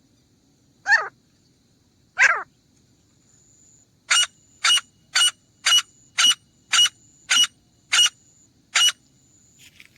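Grey francolin calling: two falling notes, then a run of nine sharp, evenly spaced notes at about two a second.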